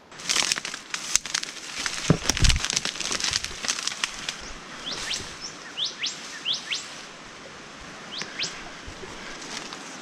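Undergrowth rustling and twigs cracking as someone forces a way through ferns and branches, with two heavy steps about two seconds in. From about five seconds in, a bird gives a run of short, quick rising chirps.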